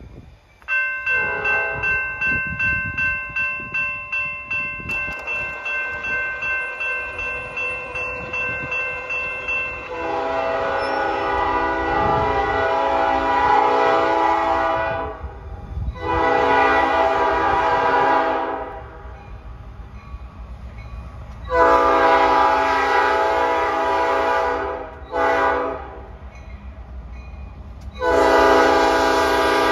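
A grade-crossing warning bell rings in quick, even strokes and stops about a third of the way in. Then a Norfolk Southern diesel locomotive's multi-chime air horn sounds long blasts for the approaching crossing, with a short blast near the end before a final long one that runs on.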